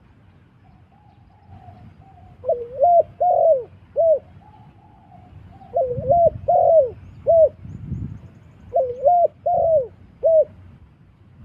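Spotted dove cooing: three phrases of four short rising-and-falling coos, with a fainter drawn-out coo between the phrases.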